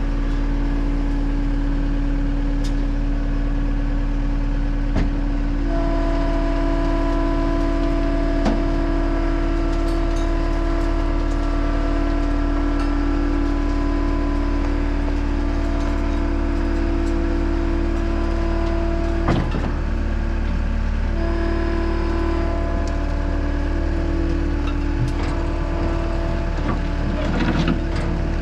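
Caterpillar 259D compact track loader's diesel engine running steadily, with a hydraulic-type whine. The pitch and load shift about a fifth of the way in and again past the middle, and there are a few short knocks.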